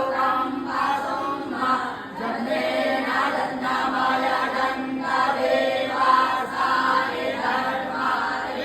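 A group of young Vedic students chanting Sanskrit mantras together in unison, in continuous phrases with short breaks for breath.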